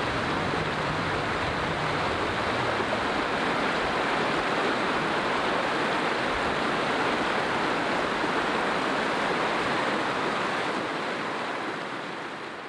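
Steady rush of a fast-flowing river running over rocks, fading out near the end.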